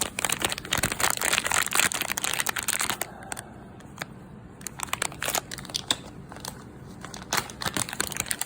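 Dense crinkling and crackling handling noise with many small clicks, easing off for a couple of seconds in the middle and then picking up again.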